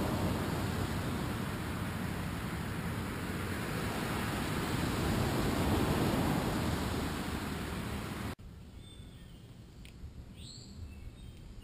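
Steady rushing wind noise on the trail camera's microphone. It cuts off abruptly about eight seconds in, giving way to quieter outdoor ambience with a few short bird chirps.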